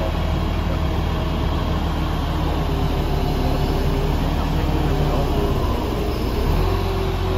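Truck-mounted crane's diesel engine running steadily to power the crane hydraulics while the crane is worked by radio remote control, with fainter wavering tones above the drone. The engine note shifts about six and a half seconds in.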